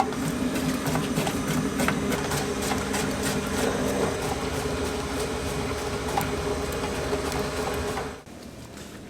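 Factory processing machinery running steadily, a mechanical hum with rapid clicking and rattling, which cuts off abruptly about eight seconds in.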